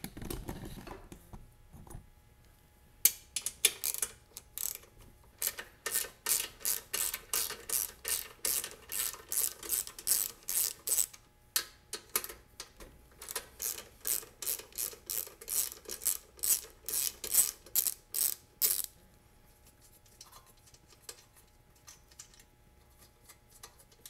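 Ratchet wrench clicking in long runs of quick strokes as it backs out the bolts holding the blower housing on a Briggs & Stratton lawn mower engine. The clicking starts a few seconds in and stops some seconds before the end.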